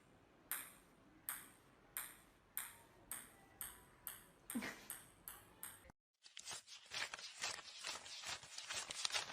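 A run of sharp, ringing pings, like a small bell or a struck glass, coming faster and faster. About six seconds in it cuts off abruptly into a dense scratchy crackle.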